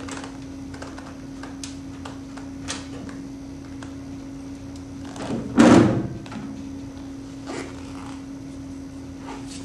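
Small metal clicks and taps, then a little past halfway a loud scraping thunk as the tumbler's fan motor assembly, motor with blower wheel and mounting plate, is worked free of the sheet-metal cabinet.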